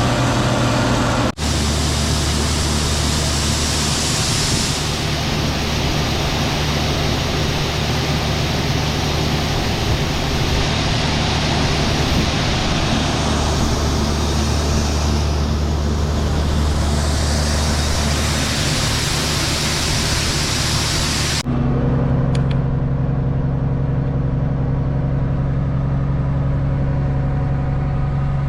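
Combine harvester running steadily at harvesting load, a loud even machine din over a low engine hum. The sound changes abruptly about a second in and again about three-quarters through, as separate clips are cut together.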